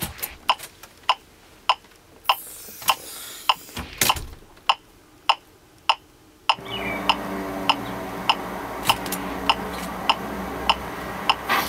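LIFEPAK 15 defibrillator's CPR metronome ticking steadily at about 100 ticks a minute. Each tick is a sharp click with energy in several separate pitch bands, designed to cut through noise. Behind it a replayed background-noise recording plays, faint at first; about six and a half seconds in, a louder steady noise with a low hum comes in.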